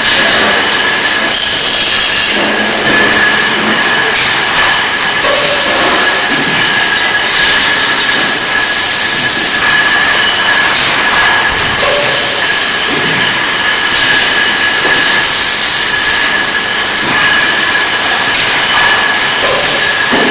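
Milk-bottle packing line running: conveyor and automatic shrink-wrapping machine give a loud, steady machine hiss with a constant high whine and irregular clatter.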